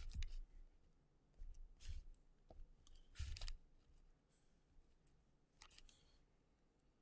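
Faint handling noises from a smartphone being handled: a few short rustles and soft clicks, the clearest about three seconds in, with a quiet room in between.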